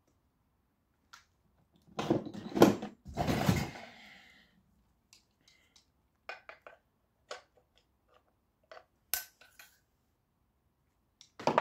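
Metal parts of a scrapped electric motor being handled and worked with pliers: a burst of clattering about two to four seconds in, then scattered small clicks and knocks, with a sharp click near the end.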